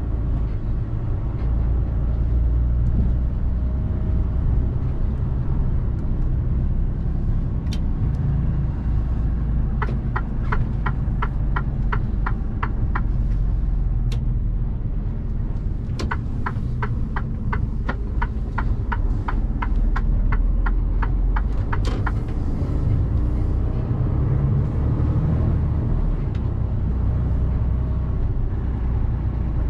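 Mercedes Actros truck's diesel engine and road noise running steadily as heard inside the cab. Twice a run of evenly spaced ticks comes in, about three a second, each run lasting several seconds, like a turn indicator clicking.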